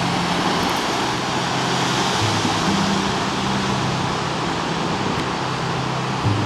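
Soft background music of slow, held low notes that step to a new pitch every second or so, over a steady rushing noise.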